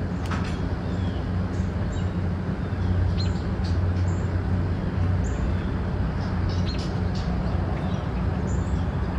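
Steady low rumble with short, high bird chirps every second or so above it.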